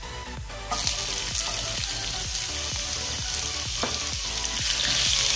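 Chopped onion hitting hot oil and cumin seeds in a frying pan: a sharp sizzle starts suddenly about a second in and grows louder near the end.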